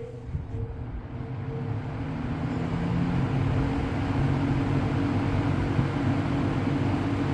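Lakewood P-25 20-inch box fan starting up: the motor hum and rushing air build over the first three seconds or so, then run steady. The motor's bearings are nearly dry and in need of oil.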